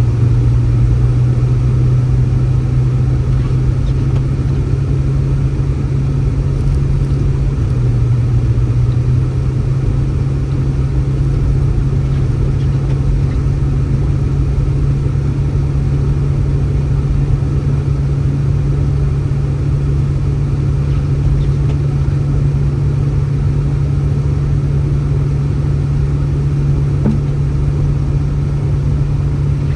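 Steady low drone of a running engine, with a constant hum that shifts slightly in pitch about eight seconds in.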